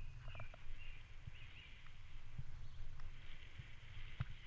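Bicycle riding along a tarmac towpath: a steady low rumble from the tyres with occasional knocks and rattles over bumps. A bird calls with a run of short chirping notes in the first couple of seconds.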